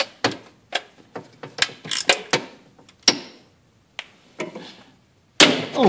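Quarter-inch drive ratchet clicking in short, irregular strokes while loosening intake manifold bolts. A louder sound sets in just before the end.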